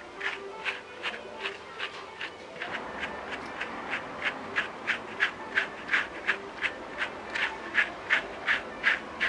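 Slicker brush raking through a dog's long, knotted coat in quick, even strokes, about three a second, the strokes getting louder after about three seconds.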